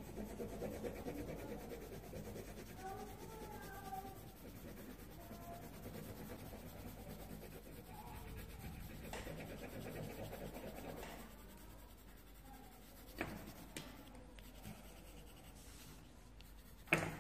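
Coloured pencil scratching on paper as a drawing is shaded in, faint and continuous. A sharp tap near the end.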